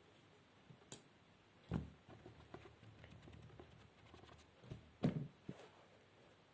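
Faint scattered handling noises: a few soft knocks and light rustling, the clearest pair of knocks a little after five seconds in.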